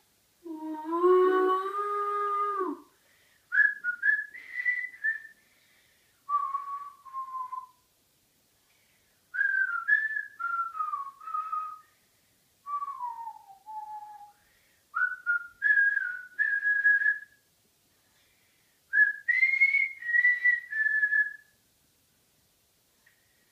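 A person whistling a melody in six short phrases with pauses between them, after one long sung note at the start.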